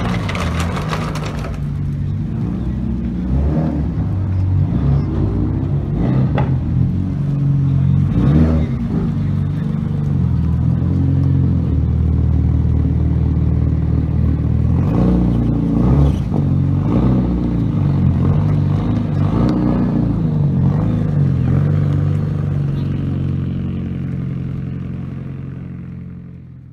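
Engines of lowered sports cars running as they drive slowly out one after another, with repeated blips of throttle revving up and dropping back. The sound fades out near the end.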